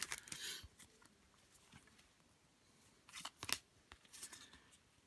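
Foil trading-card packet crinkling briefly as it is opened, then a few quiet sharp clicks and rustles of the cards being handled, about three seconds in and again a second later.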